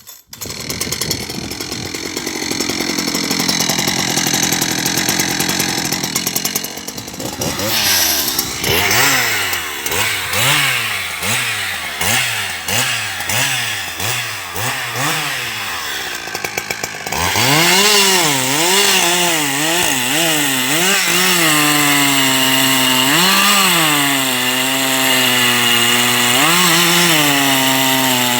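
Husqvarna 372 XP two-stroke chainsaw running loudly, revved up and down in quick repeated blips. About halfway through it is held at high revs, its pitch dipping and recovering several times.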